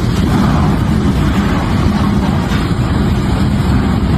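Heavy machinery running with a loud, steady low rumble.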